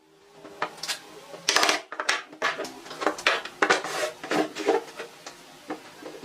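Irregular clatter of hard objects being handled: a string of sharp knocks and clicks, the loudest near two seconds in, typical of woodworking tools and wooden pieces being set down and worked by hand.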